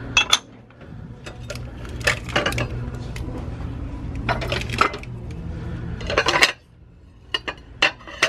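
Ceramic plates clinking and clattering against each other as stacked plates are lifted and set back on a shelf. The clinks come in several bunches about two seconds apart, with lighter clinks near the end, over a low steady hum that stops about two-thirds of the way through.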